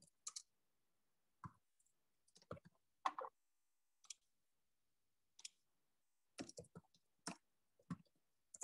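Faint, scattered clicks of a computer mouse and keyboard, about one or two a second at uneven gaps, with near silence between them.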